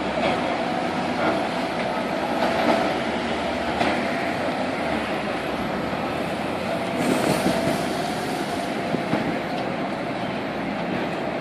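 Demolition excavator working on a concrete bridge: a steady mechanical rumble and grinding with a held metallic tone, a few sharp knocks, and a harsher rasping stretch about seven seconds in.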